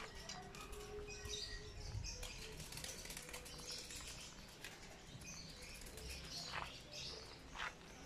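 Faint outdoor ambience with small birds chirping now and then.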